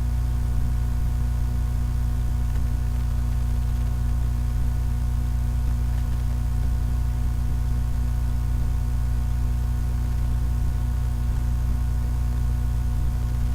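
Steady low electrical hum with a buzz of higher overtones, unchanging throughout.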